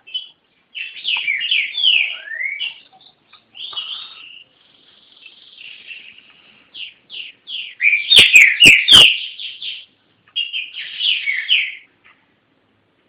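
Green-winged saltator (trinca-ferro) singing in several phrases of short, mostly falling notes, with brief pauses between phrases. A few sharp clicks come about eight seconds in.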